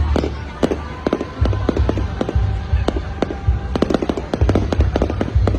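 Aerial fireworks going off in quick succession: sharp bangs and crackles over deep booming, growing denser near the end.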